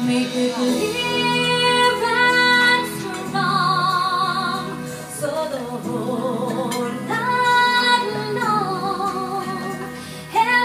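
A woman singing solo into a handheld microphone, holding long notes with a wavering vibrato between shorter sung phrases.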